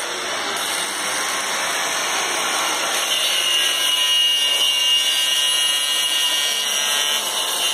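Electric angle grinder cutting through a white plastic water pipe, running steadily without a break. A high whine strengthens about three seconds in.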